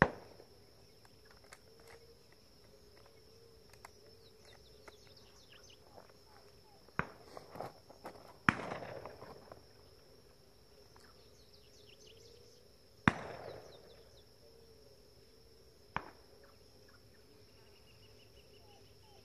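Shotgun shots at doves: five sharp reports, the loudest at the start and about eight and a half and thirteen seconds in, the others fainter and farther off. Between them a steady high buzz of insects.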